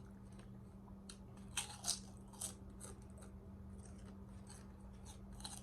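Close-up chewing of a BLT sandwich: a run of crunchy chews about every half second, the loudest crunches around a couple of seconds in.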